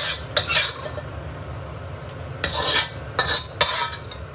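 Metal chopsticks scraping and clinking against a ceramic plate in several short strokes, two near the start and two more after a pause of about two seconds.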